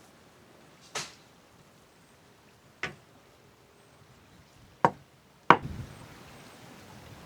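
Four sharp knocks, unevenly spaced, the last two loudest and closest together; after the last a steady rushing noise comes up.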